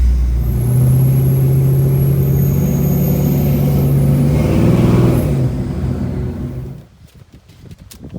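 Chevy K5 Blazer's engine running with a loud, steady drone that fades from about five seconds in and cuts off near seven seconds.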